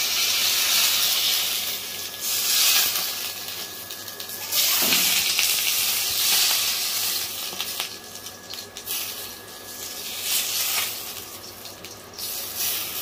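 Hot groundnut oil sizzling as it is ladled over steamed fish topped with chopped garlic and red chilli. The sizzle swells several times as each ladleful goes on, then dies back.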